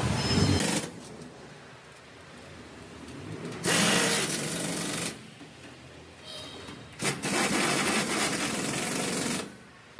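Hand-held pneumatic air tool running in two bursts, about a second and a half and then about two and a half seconds long, as it drives bolts into the floor panel of an auto rickshaw's body.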